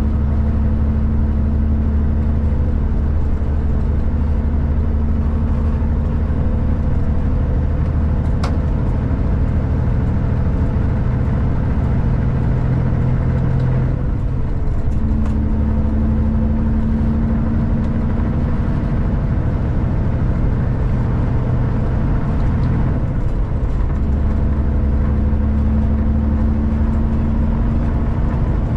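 Heavy truck's diesel engine running under way on the highway, with steady road noise; the engine note shifts a few times, and there is one brief click partway through.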